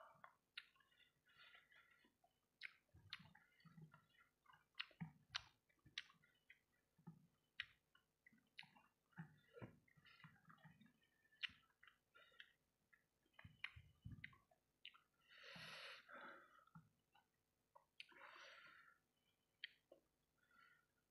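Close-up eating sounds of someone chewing fried rice balls in sauce: many small wet mouth clicks and lip smacks. Two longer breaths come about two-thirds of the way in and again a couple of seconds later.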